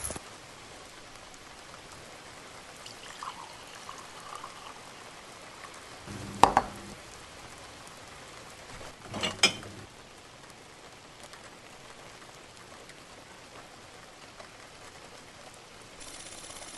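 Steady rain falling, with two sharp knocks about three seconds apart near the middle.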